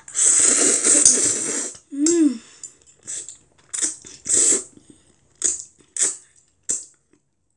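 A child loudly slurping Chapagetti black-bean instant noodles off chopsticks, one long slurp of nearly two seconds, then a short hummed "mm" and several brief slurps and mouth smacks while chewing.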